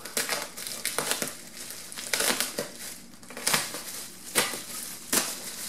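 Bubble wrap and plastic packaging crinkling as a parcel is handled and unwrapped by hand, in irregular crackles and rustles.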